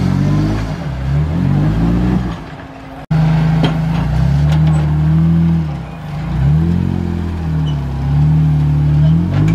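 Lifted Jeep Wrangler's engine revving up and down in repeated surges as it crawls up a boulder ledge under load. The sound cuts out sharply for an instant about three seconds in.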